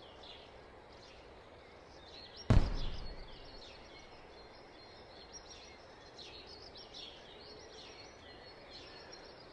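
Soft background birdsong, with short chirps repeating, and one sudden thump about two and a half seconds in that fades out quickly.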